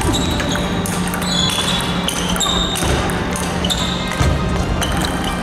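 Table tennis rally in a large hall: the celluloid ball clicks again and again off bats and tables, with quick footwork and shoes squeaking on the sports floor.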